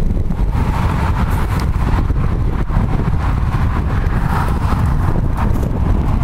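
Wind buffeting the microphone in a steady, loud rumble, with irregular crunches of boots moving through deep snow.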